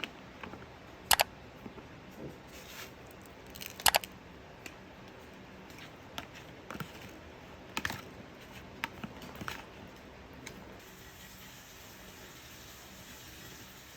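Irregular clicks and knocks of small objects being handled, the three loudest about 1, 4 and 8 seconds in, with a faint steady hiss in the last few seconds.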